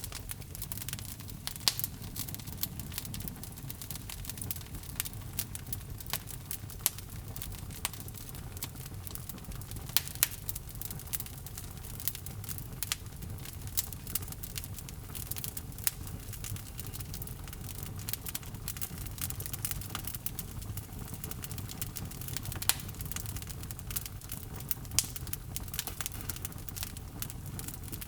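Wood fire burning in a fireplace: a steady low rumble of the flames with irregular crackles and a few sharper pops from the burning logs.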